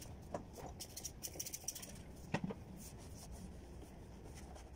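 Faint rubbing with scattered soft clicks and taps as a cloth wipes a scooter's plastic grab handle clean.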